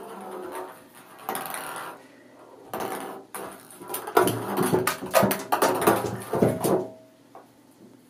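Ping pong ball knocking and rattling around a bathtub as a kitten bats and chases it, with paws scrabbling on the tub surface. A few knocks at first, then a dense run of clatter from about four to seven seconds in, dying down near the end.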